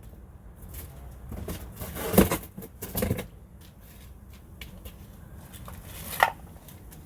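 Snow pusher parts being handled and set out: light rustling with a few knocks and clatters, the loudest about two and three seconds in, and a sharp click near the end.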